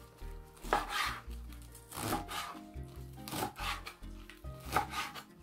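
Kitchen knife slicing through fresh lettuce leaves on a cutting board: about six short, crisp cutting strokes, irregularly spaced, over background music.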